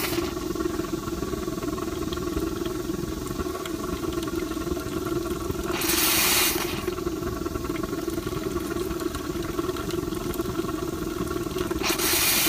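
Live-steam injector on a 1/8-scale Shay locomotive that has not yet picked up, spitting steam in three short hissing bursts about six seconds apart, over the steady hum of the propane burner fire.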